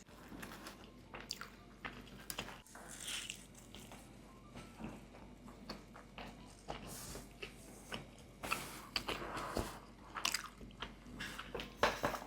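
Close-miked biting and chewing of bika ambon, a spongy, chewy Indonesian cake, with irregular wet mouth clicks.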